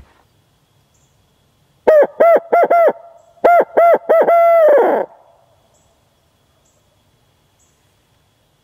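Owl hooter locator call imitating a barred owl's 'who cooks for you, who cooks for you all': four short, loud hoots, a short pause, then three more, the last drawn out and falling. It is blown at dusk to make a roosting wild turkey gobbler shock-gobble and give away his position.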